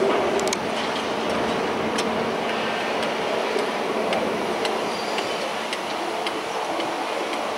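Steady hum of distant heavy machinery at an open construction site, with scattered light clicks and ticks throughout.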